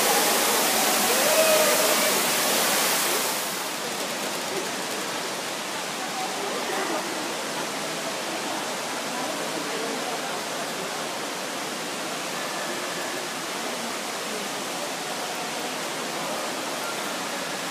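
Rushing water of a tall waterfall, loud for about the first three seconds, then dropping suddenly to a much quieter steady hiss with faint voices.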